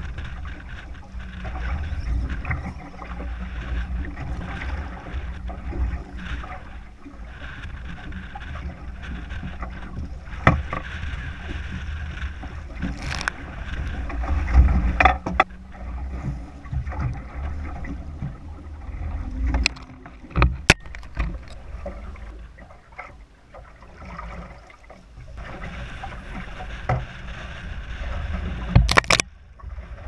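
Heavy wind buffeting the microphone over choppy water lapping at a small fishing boat, with scattered sharp knocks and clatters in the boat.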